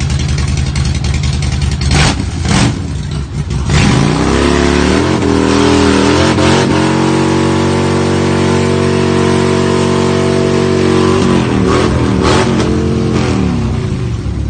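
An engine idling, then revved up about four seconds in and held at high revs for several seconds before it drops back to idle. A few sharp clicks come through over it.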